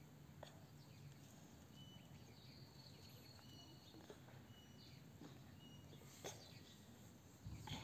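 Near silence: faint background hum with a few short, high peeps and some soft taps, the loudest cluster of taps near the end.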